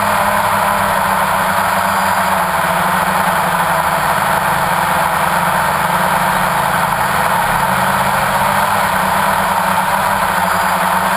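Multirotor camera drone's motors and propellers running steadily, heard close up through the drone's own onboard camera: a constant hum with a broad hiss over it, holding the same pitch throughout.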